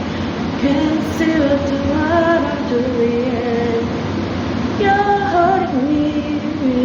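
A woman humming a slow melody without words, over a steady background hiss.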